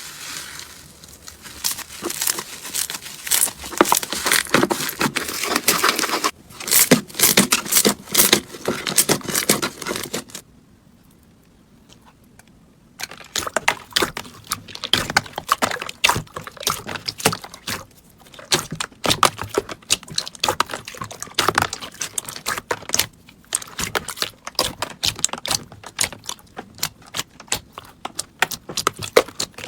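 Slime being squeezed and poked by hand, making dense runs of crackles, clicks and crinkly pops, with a short lull about ten seconds in.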